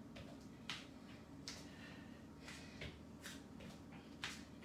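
Faint rhythmic sounds of a person exercising in a plank: a short soft noise a little under once a second, over a low steady hum.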